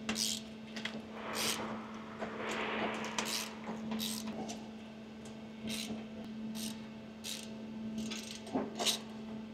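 Irregular metal clinks and knocks of hand tools and a drain tank being handled while setting up to drain the oil filter housing of a Pratt & Whitney PW1100G engine, over a steady low hum.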